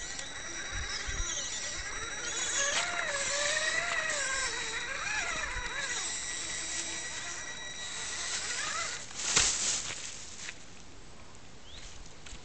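Traxxas Summit RC truck's electric motor and gears whining, the pitch wavering up and down with the throttle as it crawls over the rough ground, with one sharp knock a little past nine seconds in.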